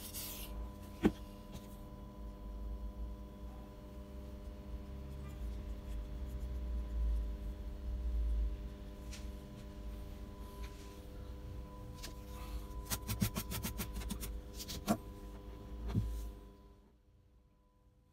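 Scraping and rubbing by hand on the guitar's wood, cleaning off old glue residue, with a few sharp taps and a quick run of clicks near the end, over a steady electrical hum. The work stops shortly before the end.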